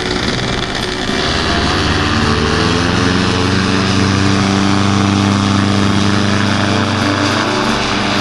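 Paramotor engine and propeller running hard for a take-off run: the pitch climbs as the throttle opens about a second in, then holds steady at high power.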